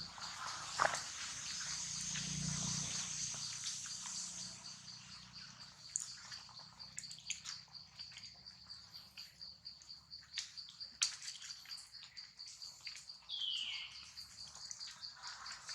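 Outdoor animal ambience: a steady, evenly pulsing high insect drone, with scattered small clicks and rustles. One short, high, falling squeal comes near the end.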